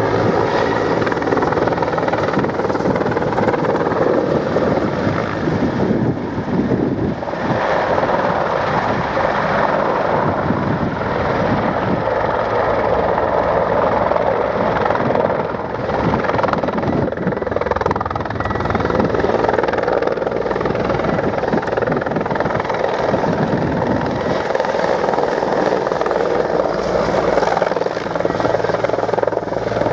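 Mil Mi-35 Hind attack helicopter flying a display, its main rotor and turbine engines making a loud, steady noise throughout.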